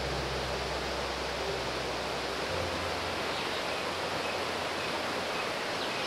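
Rocky mountain stream rushing over boulders and small cascades: a steady, even rush of water.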